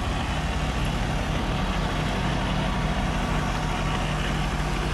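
Heavy diesel engine of construction machinery running steadily with a low hum.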